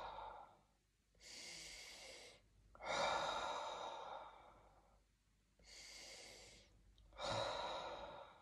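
A man breathing slowly and deliberately through his nose and mouth: an out-breath fading at the start, then two full slow breaths, each a faint in-breath followed by a louder out-breath lasting about a second and a half.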